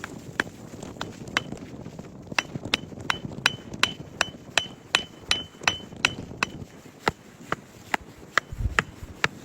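Repeated hammer blows, about two to three a second, many of them with a short metallic ring through the middle stretch.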